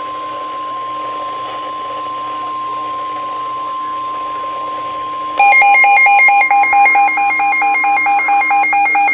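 NOAA Weather Radio 1050 Hz warning alarm tone, a steady single tone played through a weather radio receiver's speaker, signalling that a warning message follows. About five seconds in, a receiver's own alert alarm sounds on top, a loud rapid beeping that alternates between two pitches. The broadcast tone cuts off near the end.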